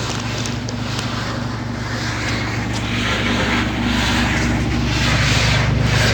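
General Electric top-load washing machine running, its motor humming steadily while the tub scrapes against the sheet-metal cabinet, the scraping building and growing louder through the second half. The tub is rubbing the metal because it sags under the weight of the water it holds.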